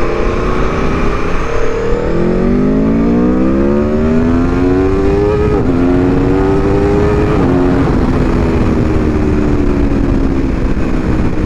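Aprilia Tuono V4 Factory's V4 engine accelerating through the gears. The pitch climbs from about two seconds in and drops with an upshift about five and a half seconds in. It climbs again and drops with a second upshift about two seconds later, then eases slowly as the revs fall.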